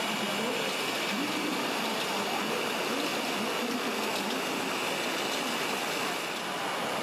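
Steady crowd noise of a busy exhibition hall, an even hiss with faint distant voices in it and a thin steady high tone over it.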